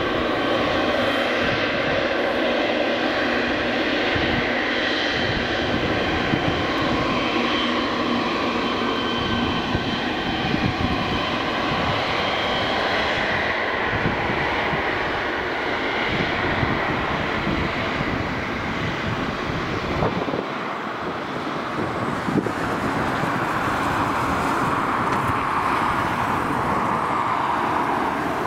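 Boeing 777 freighter's GE90 turbofan engines running at taxi power close by: a steady jet whine with several held tones over engine rush. Near the end, as the aircraft passes, a broader rushing exhaust sound grows.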